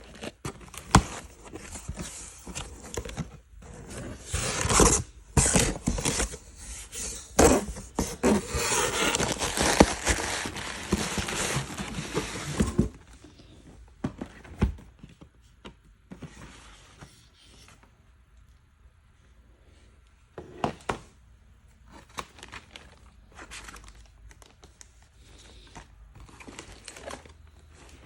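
Handling noise from a sneaker box and its wrapping being opened: crinkling and rustling for several seconds, with scattered thunks and scrapes, then only occasional light knocks and taps.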